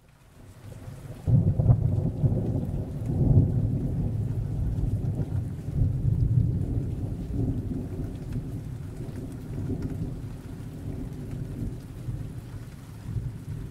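Thunder rumbling over a steady rain hiss. It fades in, swells sharply a little over a second in, then rolls on with uneven surges.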